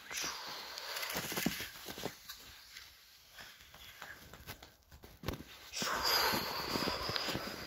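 Snow rustling and scraping as a small plastic toy sleigh is pushed across it by hand. It comes in two stretches, quieter in the middle and loudest near the end.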